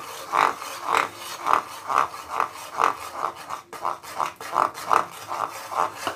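Metal spoon stirring in a steel kadai, scraping the pan in a steady rhythm of about two strokes a second as gram flour is mixed into sugar syrup.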